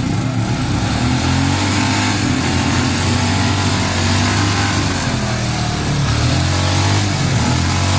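Quad (ATV) engines running close by, revving up and falling back a few times while a stuck quad is pushed through deep mud.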